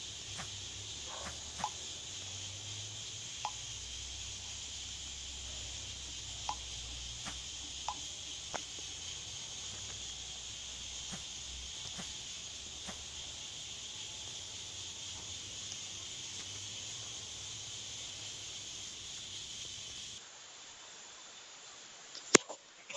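Steady high-pitched background hiss with a few faint short chirps and ticks. It cuts off suddenly about twenty seconds in, and a single sharp click follows near the end.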